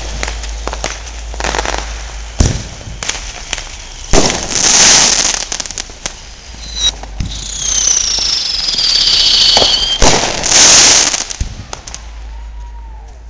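Fireworks going off: many sharp bangs and crackles, two longer hissing rushes at about four and ten seconds in, and a whistling firework falling in pitch for about three seconds in the middle.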